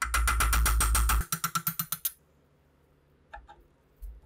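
Rapid metal-on-metal ratcheting clicks from hand-tool work on a rusty SVT-40 rear sight. A fast run of clicks lasts about a second, slows to separate clicks, and stops, with a couple of faint clicks near the end.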